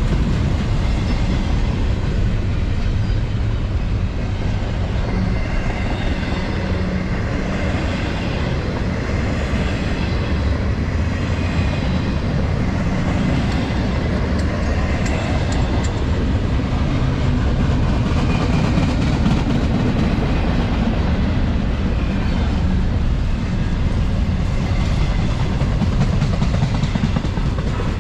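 Norfolk Southern freight train rolling past, a steady loud rumble of steel wheels on the rails.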